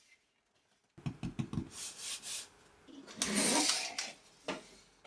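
Laptop packaging being handled and opened: a few soft knocks about a second in, then rubbing and a longer, louder scraping slide around the middle, and a click near the end.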